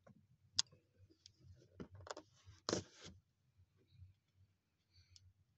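Handling noises as a cardboard box is opened: a sharp click about half a second in, then a few knocks and a short scraping rustle near the middle, which is the loudest sound.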